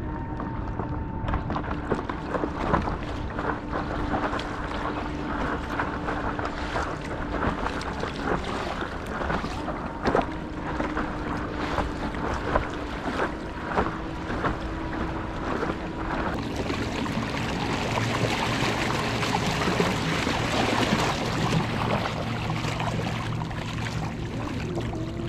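Home-built electric outboard motor whining at a steady pitch under throttle, its pitch stepping slightly a few times, over water splashing and slapping against the paddle board and wind on the microphone. In the last third the water rush grows louder and the whine gives way to lower steady tones.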